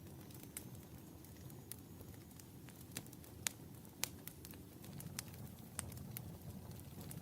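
Wood fire burning in a fireplace: a steady low rumble of flames with irregular sharp crackles and pops, the loudest two about halfway through.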